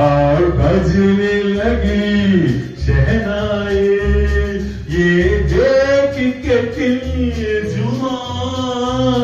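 Man singing loudly into a microphone over amplified backing music with a steady bass line, holding long notes with vibrato.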